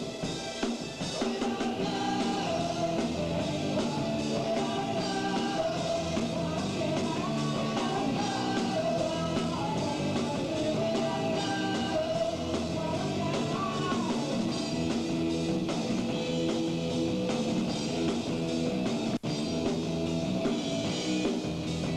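Rock band playing live, with electric guitar, bass and drum kit, and a singer's voice wavering over the top for much of it. The sound cuts out for a split second near the end.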